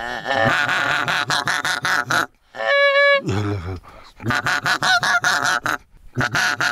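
Goose honking: loud, rapid calls in several bursts, with one longer held note about halfway through.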